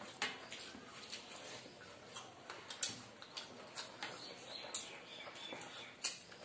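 Two people eating rice and chicken curry by hand: irregular soft clicks and smacks of chewing and lips, with fingers working the rice on the plates, and a sharper click near the end.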